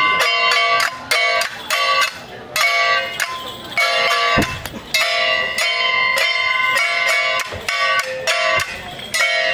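Metal percussion accompanying a Ba Jia Jiang troupe, gongs struck in a fast, steady rhythm of several ringing strokes a second. A short break comes about four seconds in, with a dull thump.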